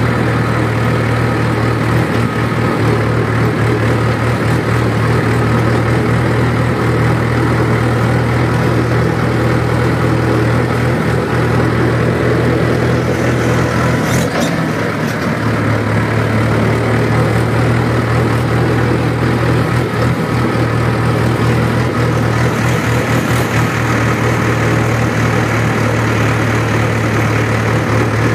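Mahindra tractor's diesel engine running steadily while the tractor drives along, heard close up from the driver's seat as a deep, even drone. About halfway through the engine note dips briefly, then settles back to the same steady run.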